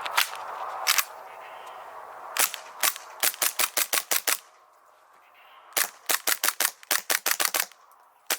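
CZ P09 airsoft pistol firing: a few single shots, then two quick strings of sharp cracks at about five shots a second, and one last shot near the end.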